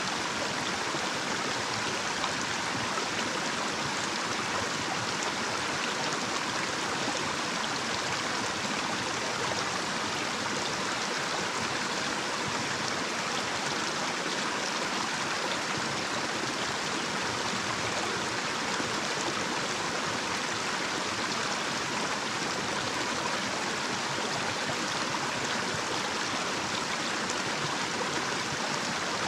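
Small, shallow natural stream running over a little cascade: a steady, unchanging rush of flowing water, brighter in the upper range than in the low.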